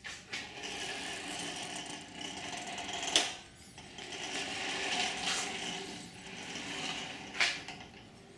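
Carriage of a homemade CNC plasma table pushed by hand along its stainless-steel rail, its bearings rolling and its pinion turning the servo motor along the steel gear rack with a gritty whirr. Two pushes, each ending in a sharp knock, about three seconds in and again near the end.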